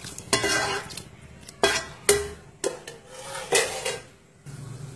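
Metal cookware clanking and scraping as stir-fried mussel meat is scraped from a wok into a steel pot of broth: about five sharp clanks, some ringing briefly, with scraping between them.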